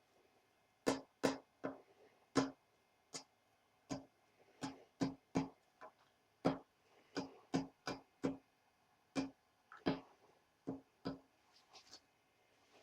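Sharp irregular ticks and pops, one or two a second, each with a short ring, from a torch-heated steel nut quenched in oil and cooling there while it is blackened.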